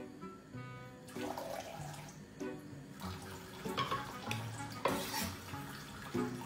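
Kitchen faucet turned on, a thin stream of tap water running into the sink, starting about a second in, over background music.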